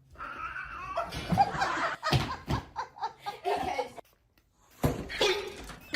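People laughing, broken by a short silence about four seconds in.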